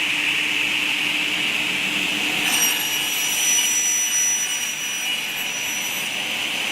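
Double-head aluminium cutting saw running with a steady whirring hiss. From about two and a half seconds in until about six seconds, a high-pitched whine joins as the blades cut through a small aluminium bar.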